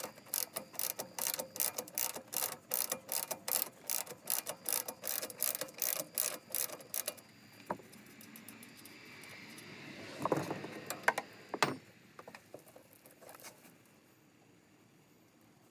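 Hand ratchet wrench with a 14 mm socket clicking steadily, about four clicks a second, as an ATV's rear shock mount bolt is worked loose. The clicking stops about seven seconds in, and a couple of metal knocks follow.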